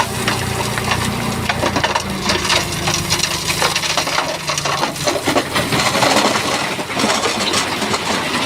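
Rocks clattering and grinding as a Shantui bulldozer's blade pushes them, over the dozer's diesel engine running; the engine hum drops away about halfway through while the clatter goes on.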